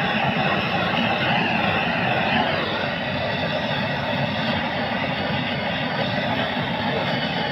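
Loud, steady noise of heavy machinery running, a continuous mechanical drone with no breaks.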